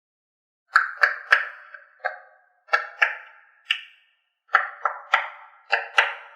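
A run of bright, chime-like struck notes, about a dozen in an uneven rhythm, each ringing out briefly.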